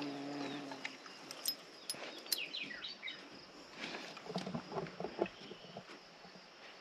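A bumblebee's steady buzz fades away within the first second. A bird then gives a few quick falling chirps about two to three seconds in, amid scattered light clicks and a few soft taps.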